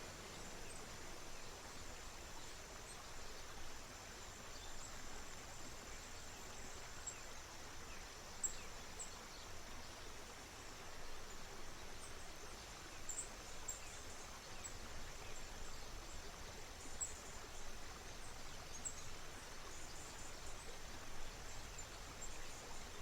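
A small stream flowing with a steady soft rush, under a continuous high-pitched hum. Short high bird chirps come here and there, more often in the second half.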